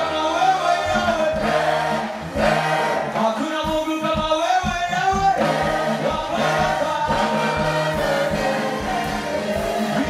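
Gospel music: a choir singing over a steady beat.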